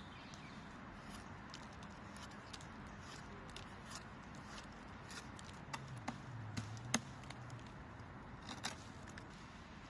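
Scattered sharp taps and clicks of carving tools on wood, a few in a cluster just past the middle and the loudest crack around two-thirds of the way in, over a steady faint outdoor hiss.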